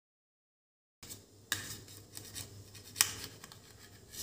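A knife blade scraping and clicking against a stainless-steel thali as it prises steamed sabudana papads off the plate. The sound starts about a second in, with sharp metal taps near the middle and a louder one about three seconds in.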